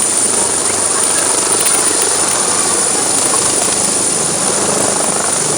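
Helicopter running, a loud steady rotor and engine noise with a thin high whine held over it.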